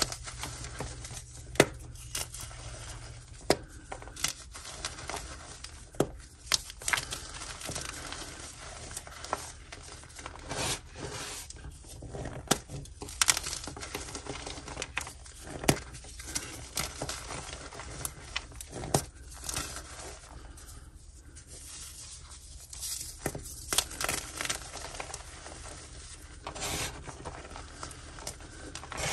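Blocks of coloured gym chalk crushed and crumbled by hand: irregular sharp snaps as chunks break off, with a soft powdery crunching between them.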